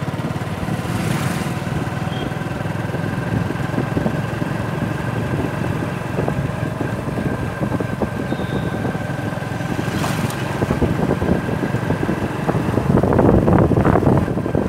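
A motor vehicle engine running steadily, with wind rushing over the microphone, as if recorded while riding along a road. It grows louder near the end.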